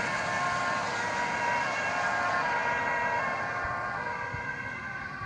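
Ambulance two-tone siren switching back and forth between a high and a low pitch, growing fainter as the ambulance drives away on an urgent call.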